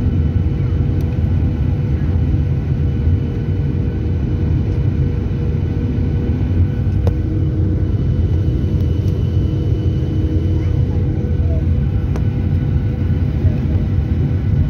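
Steady cabin noise of a Boeing 737-800 airliner in flight, heard from inside the cabin: a low rumble of airflow and jet engines with a steady whine held on one pitch.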